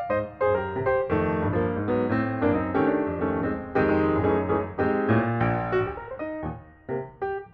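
Instrumental piano music playing a continuous run of notes, thinning out briefly near the end.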